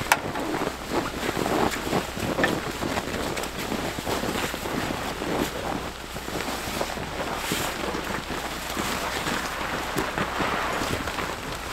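Wind rumbling on the microphone, with irregular rustling and scraping as a fabric ice fishing tent is dragged across the snow over a hole in the ice.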